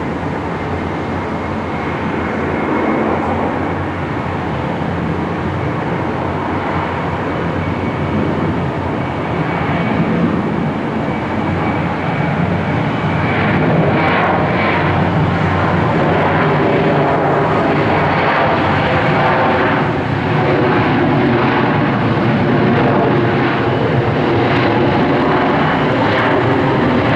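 Airliner engines roaring steadily, with a high steady whine in the first half, then growing a little louder over the second half.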